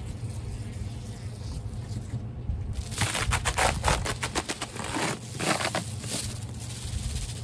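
Crinkling and crackling of a sheet of foil bubble-wrap insulation being pulled off the top of a beehive. A quick run of crackles starts about three seconds in and lasts about three seconds, over a steady low hum.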